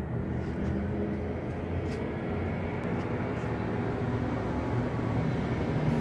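A steady low engine rumble that slowly grows louder, with a few faint ticks over it.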